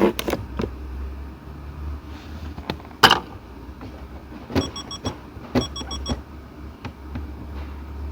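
Clicks and knocks from a Ford Figo's automatic gear shifter assembly being worked by hand, its shift lock no longer holding; the sharpest knock comes about three seconds in, with clusters of clicks later. A low hum runs underneath, and two short runs of faint high beeps come with the later clicks.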